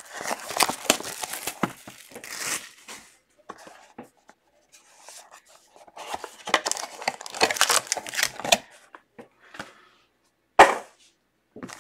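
Wrapping and cardboard of a trading-card box being torn and crinkled open by hand, in two spells of crackling with a quiet stretch between, and one short loud crackle near the end.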